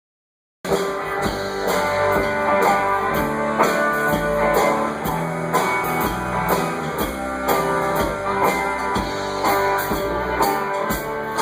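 Live band playing guitar-led rock music with bass and a steady beat, starting abruptly about half a second in.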